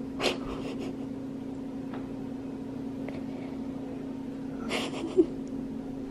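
Steady low electrical or mechanical hum, like a running appliance or fan in the room, with two brief soft rustling noises, one about a third of a second in and one near the end.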